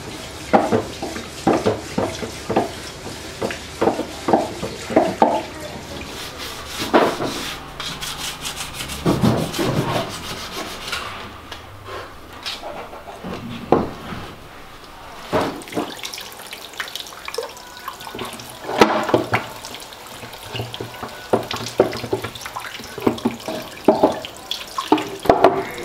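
Hand rubbing on wooden furniture, sandpaper or cloth worked over carved wood in runs of short back-and-forth strokes, about two a second at first, then in spaced clusters.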